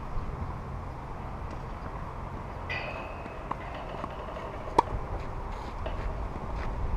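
Tennis racket striking a ball: one sharp, loud pop about two-thirds of the way through, with a fainter, more distant hit a little earlier, over steady outdoor background noise.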